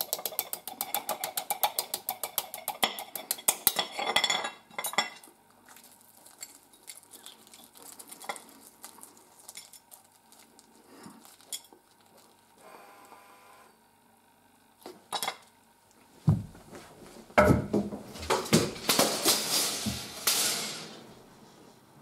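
A metal teaspoon tapping rapidly on the shell of a hard-boiled egg in its egg cup, about six taps a second for some five seconds, cracking the shell. Then fainter crackling as the shell is picked off by hand. Near the end comes a louder stretch of rustling and thumps.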